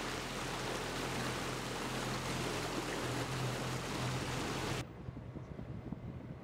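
Water rushing past a motorboat under way, with the steady low hum of its engine. Almost five seconds in it cuts off suddenly to a quieter sound of open water with wind buffeting the microphone.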